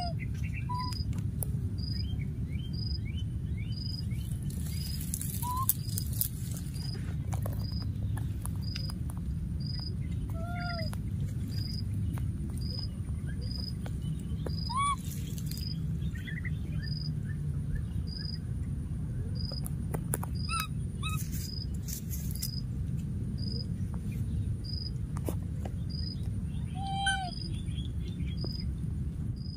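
Outdoor ambience: a steady low rumble with a short high chirp repeating a little more than once a second throughout. A few short squeaky calls and some brief rustling crackles break in now and then.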